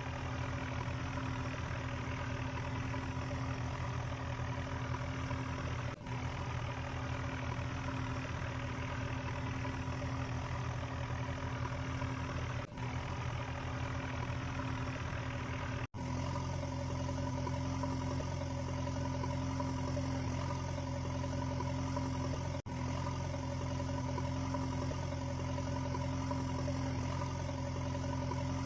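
Steady engine hum like a tractor or excavator engine idling, holding one unchanging pitch throughout and cutting out briefly a few times.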